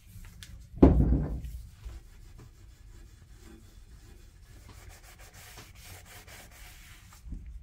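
A heavy thud about a second in, then a gloved hand rubbing and wiping a cloth along the painted surface of a garden-bench frame, faint and continuous, with a small knock near the end.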